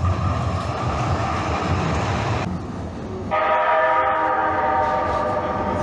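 Calgary Transit light-rail train running with a steady rumble; about three seconds in a steady chord of several tones joins it and holds.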